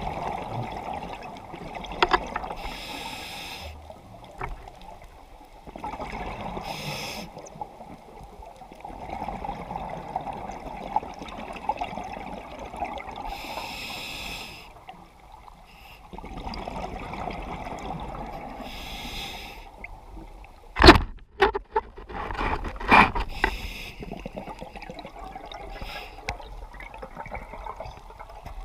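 Scuba diver breathing underwater through a regulator: a hiss on each inhale about every five to six seconds, alternating with bubbling exhaust on each exhale. About two-thirds of the way through come a few louder, sharper bursts.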